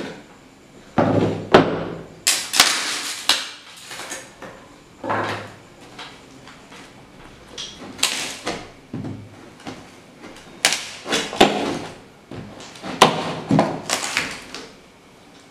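A cardboard shipping box being cut open with a blade: irregular scraping and tearing strokes through the cardboard, with some knocks against the box.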